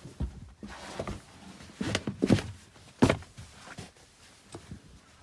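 Dull thumps and rustling from someone moving about on the carpeted floor of a motorhome and handling the floor mats: a string of knocks, the loudest about two and three seconds in, dying away near the end.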